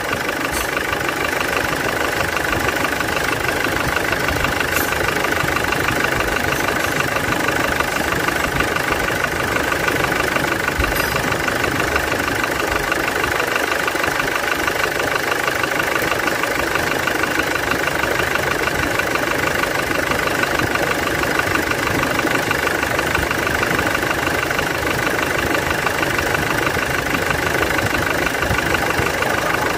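Hyundai Porter II common-rail diesel engine idling steadily with a continuous diesel clatter. The mechanic, listening with a stethoscope probe, traces a small rattle to the timing chain, which he calls loud and says needs re-timing, and also finds a clogged injector.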